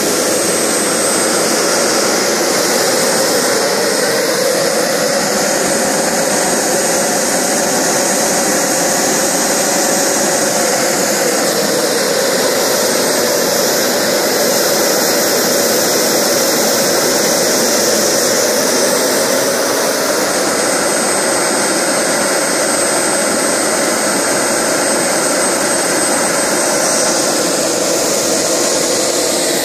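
Small turboshaft gas turbine of a PST Jets turbine power generator running steadily at speed: a loud, even jet roar with a thin, steady high-pitched whine over it.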